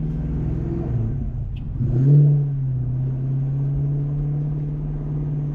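1988 Mustang GT's 5.0 V8 running under way; its note dips for a moment about a second and a half in, then picks up louder as it accelerates and settles to a steady pull.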